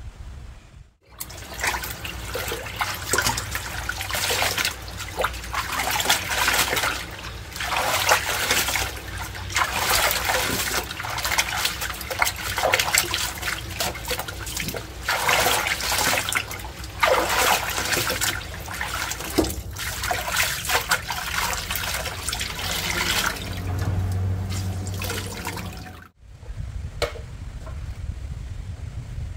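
Hands sloshing and scrubbing cloth rags in a plastic basin of soapy water, in irregular splashing surges. It cuts off abruptly near the end.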